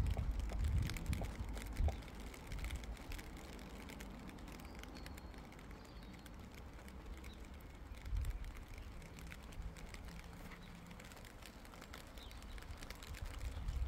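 Low wind rumble on the microphone, stronger at the start, about eight seconds in and near the end, over a faint outdoor background with a few small clicks.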